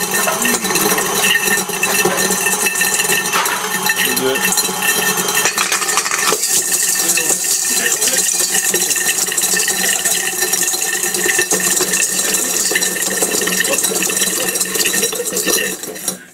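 KitchenAid stand mixer running, its beater churning the glass of smashed 40-watt halogen bulbs in a stainless steel bowl: constant rattling and clinking of glass shards against the metal over a steady motor hum. It cuts off suddenly near the end.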